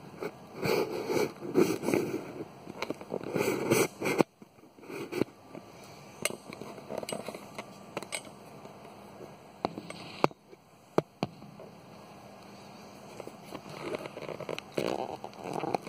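Rustling and handling noise with scattered sharp clicks, loudest in the first four seconds and again near the end.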